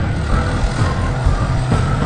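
Background music mixed with the steady running of a heavy machine's engine underneath.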